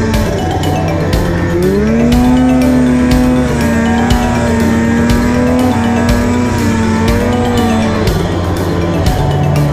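2017 Polaris 800 RMK Axys snowmobile's two-stroke twin engine revving under throttle while riding through snow, its pitch climbing about a second and a half in and again near the end. Background music with a steady beat plays underneath.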